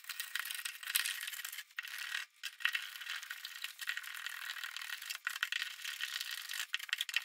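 Sped-up handling noise: wires, plastic wire nuts and a dimmer's metal mounting strap rattling and clicking against a metal electrical box as the dimmer is pushed in and fastened. It is a dense, thin run of rattles and clicks with a few short breaks.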